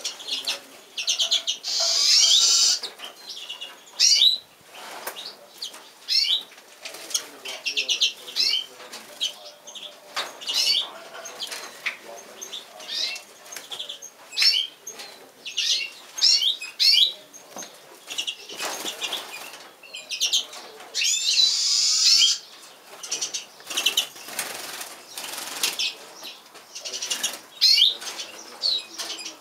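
Magpies calling again and again in harsh, rapid chattering bursts, with the loudest bursts about two seconds in and again about twenty-one seconds in.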